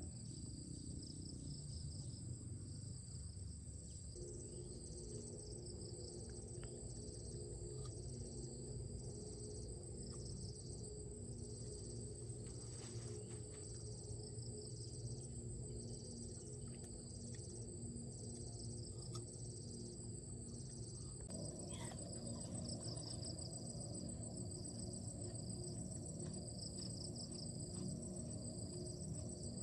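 Insects, crickets by their sound, chirping: a continuous high trill with a second chirp pulsing on and off about once a second, over a low steady background rumble.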